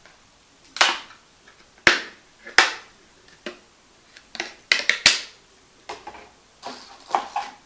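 Plastic back cover of a Mlais M9 Plus smartphone being pried off its clips, giving a series of sharp plastic clicks and snaps at uneven gaps, several in quick succession about five seconds in.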